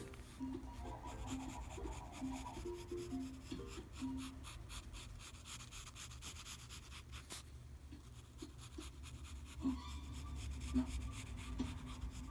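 Pencil scratching on lined paper in many short sketching strokes. A few faint musical notes play in the first few seconds.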